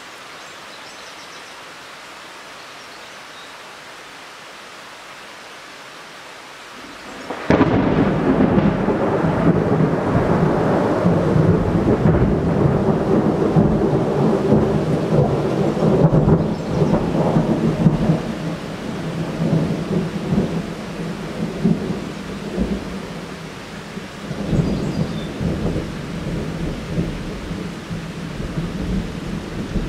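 Steady rain hiss, then about seven seconds in a sudden loud thunderclap that rolls on as long rumbling thunder, easing off slowly with a few swells.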